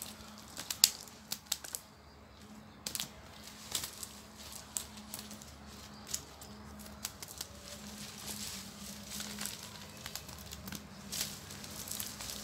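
Scattered crackles and rustles as a cast net tangled with dry leaves and twigs is handled on a leafy sandy bank, with a faint steady low hum underneath.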